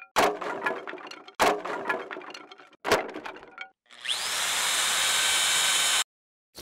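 A wooden dowel drops onto a hardwood workbench top three times, each a sharp knock trailing off into a rattle as it bounces and rolls. Then a power drill spins up with a short rising whine and bores into a wooden rail for about two seconds, cutting off suddenly.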